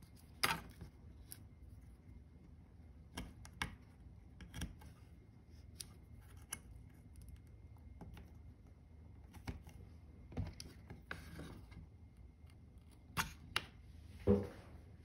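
Scattered small clicks and rustles of hands handling servo leads and pushing their plug connectors onto a circuit board, with a louder knock near the end.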